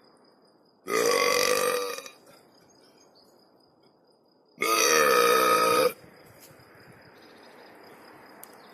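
Two long burps from a person, each lasting a bit over a second and about three and a half seconds apart, the second wavering in pitch. A faint steady high-pitched tone runs underneath.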